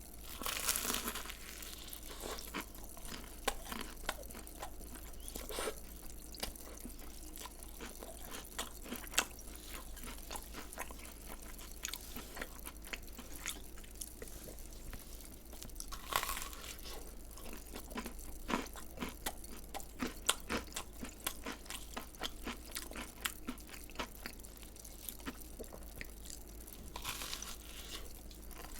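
Close-miked eating of crunchy fried food: steady crackly chewing, with louder crunching bites about a second in, halfway through and near the end.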